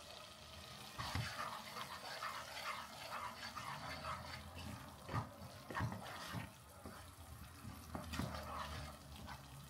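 Wooden spoon stirring and scraping a thick tomato-paste sauce in a non-stick pot, faint and irregular, with a few soft knocks of the spoon against the pot.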